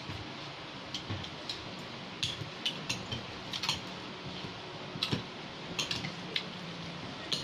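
Cutlery clinking and scraping against plates during a meal: irregular small clicks and taps, a few of them sharper, about a second in, around two seconds in and near five seconds.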